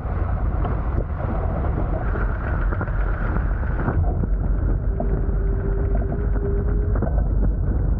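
Wind buffeting the microphone and water rushing past the hulls of a Hobie Tiger F18 beach catamaran under sail. A steady hum sounds from about five to seven seconds in.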